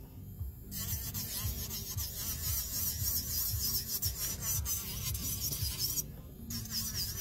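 Electric nail drill (e-file) with a bit grinding old gel off a fingernail, taking most of the product down before a fresh gel coat. It makes a high, wavering whine with a gritty grinding hiss, cutting out briefly near the start and again about six seconds in.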